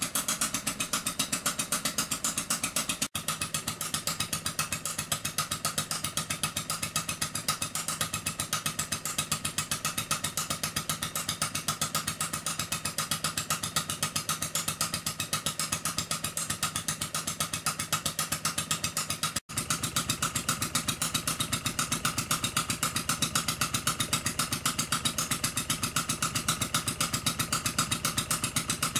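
Scratch-built miniature two-stroke crosshead hot-bulb engine running fast and evenly, a rapid regular beat of firing strokes and clattering crosshead and valve gear.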